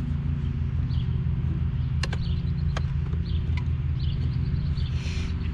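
A steady low mechanical hum with a fast pulse, with a few sharp clicks about two, three and three and a half seconds in, and faint short high chirps of birds.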